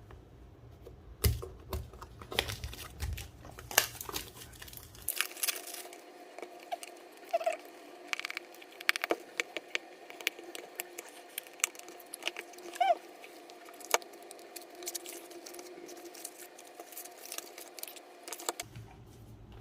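Packaging being handled and opened by hand: scratching and rustling with many sharp clicks and taps. A faint steady hum runs behind it from about five seconds in until near the end.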